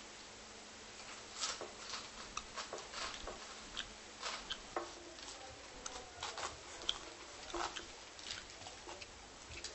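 A string of light, irregular taps and clicks, a few a second, with a faint hiss beneath.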